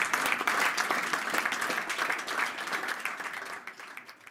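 Audience applauding, the clapping fading out toward the end.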